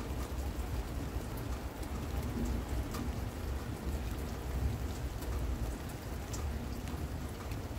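Steady rain falling, with single close drops tapping now and then, over a low rolling rumble of distant thunder.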